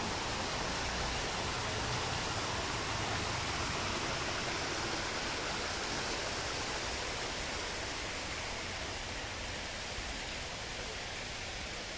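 Steady rushing of running water from a garden water feature, easing slightly toward the end.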